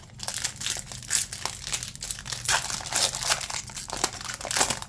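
Foil trading-card pack wrapper crinkling in the hands, a dense irregular crackle throughout.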